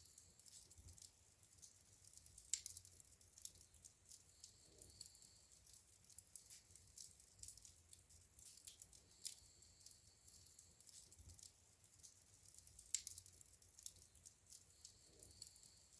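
Faint crackling of a wood fire in a fireplace: scattered small pops and snaps, with two louder snaps among them.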